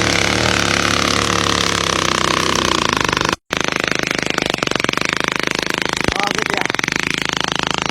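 Small motorcycle engine running, its note easing off slightly. After a brief dropout about three and a half seconds in, it continues as a fast, steady rattle.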